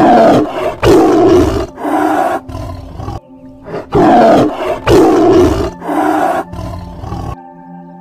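Tiger roaring: two runs of loud, rough roars, with a short break about three and a half seconds in. The roars stop about seven seconds in.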